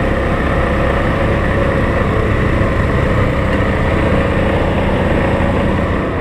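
ATV engine running steadily while riding along a trail, with tyre and wind noise mixed in.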